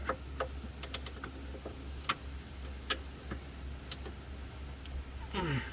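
Scattered light metallic clicks and taps of a socket extension and ratchet being worked against the serpentine belt tensioner, about a dozen irregular ticks over a steady low hum.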